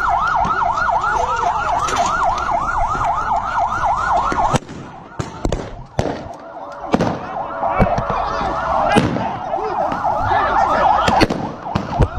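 Vehicle siren on a fast yelp, rising and falling about three times a second, cuts off abruptly about four and a half seconds in. A few sharp knocks and bangs follow, then the siren wails again, less regularly, with more sharp hits over it.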